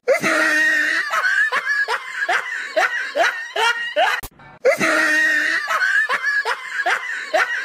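Rapid rhythmic laughter, about three laughs a second, a stretch of about four seconds that stops briefly just past the middle and then plays again almost identically: a laughing sound effect looped over the clip.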